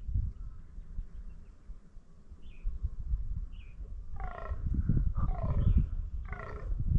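Fallow deer buck croaking, the rutting call, three times about a second apart, each call falling in pitch. A bird chirps twice just before.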